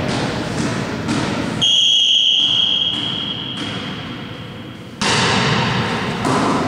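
Volleyball referee's whistle blown for the serve: one high steady tone lasting about three seconds that slowly fades out. Gym hall noise and thuds are heard before and after it.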